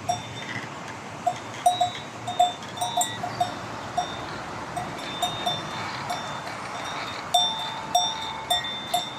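Bells on grazing livestock clanking irregularly, several strikes a second at times, each with a short metallic ring. Under them runs the steady rush of a stream.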